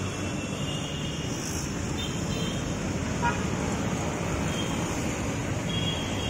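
Steady city road traffic noise, with a few faint short vehicle horn toots.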